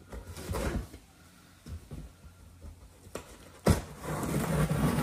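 Knife cutting the packing tape along the top of a corrugated cardboard box: some light handling, then near the end a sharp snick and a steady scratchy slicing sound.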